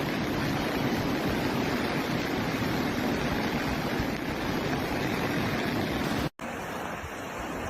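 Steady rushing of fast-flowing floodwater. About six seconds in it cuts off abruptly, then resumes quieter.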